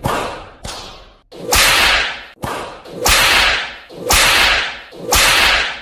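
Cartoon beating sound effects: about seven whip-like lashing swishes in quick succession, each cutting in sharply and fading within about half a second.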